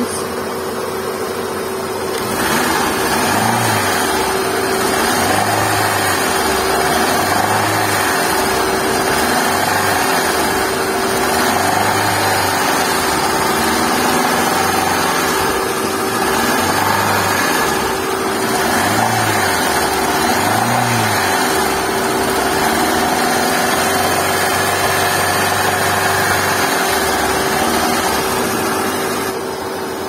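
Hyundai i10 1.0-litre engine being revved in repeated blips, from about two seconds in, with a lot of mechanical noise from the engine on acceleration. The owner puts it down to camshaft noise in an engine whose oil level has dropped to zero.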